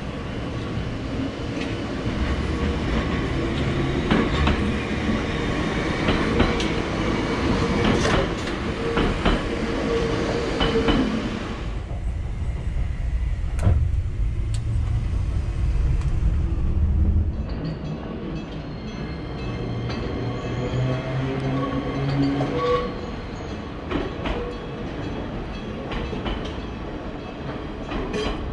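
Enoden electric train running with wheel-on-rail knocks, then slowing with a falling motor whine to a quieter halt about twelve seconds in. A few seconds later it pulls away again, its motor whine rising as it accelerates.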